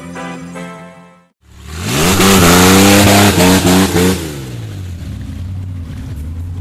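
A pickup truck's engine revving hard as its wheels churn through deep mud: the pitch climbs, holds at high revs for about three seconds with a loud rushing noise, then drops back to a lower, steady running. Before that, intro music plays briefly and cuts off about a second in.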